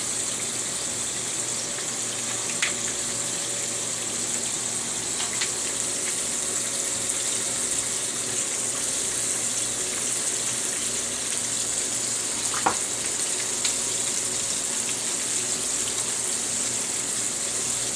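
A steady, even watery hiss from a pot of metemgee cooking on the stove, with the duff dumplings laid on top, broken by a few single light clicks.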